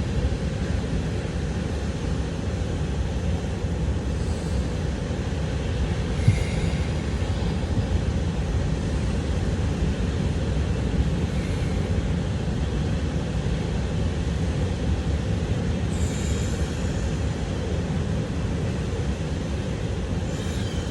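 Steady low rumble of ocean surf.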